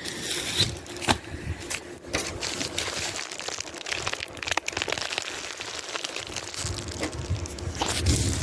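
Packaging being handled and torn open: continuous crinkling and crackling with several sharp clicks.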